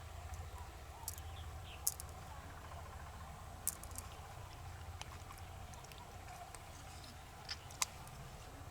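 Scattered sharp clicks and light taps, the loudest about two seconds in, again near four seconds and near the end, over a low steady hum.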